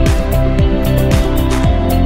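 Background music with a steady beat of deep drum hits, about two a second, over sustained notes.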